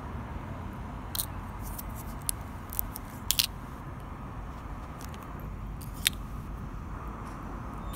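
Steady low outdoor background rumble, with a few short sharp clicks and taps of handling about one to three and a half seconds in and again about six seconds in.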